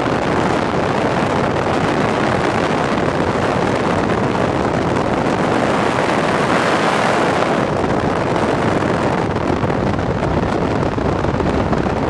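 Steady, loud wind and road noise from a car moving at speed, with wind rushing over the microphone.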